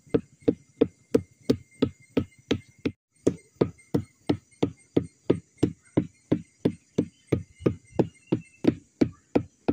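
A mallet beating the flower stalk of a sugar palm (aren) in even blows, about three a second, with a short break about three seconds in. This is the bruising of the stalk all round that coaxes it to give sap (nira) for tapping.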